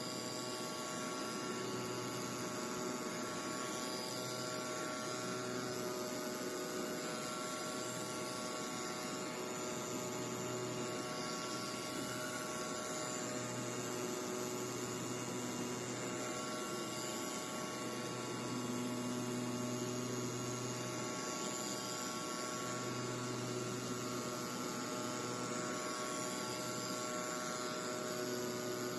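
CNC oscillating-knife foam cutting machine running: a steady machine hum with several constant whining tones, and a low drone that cuts in and out every few seconds.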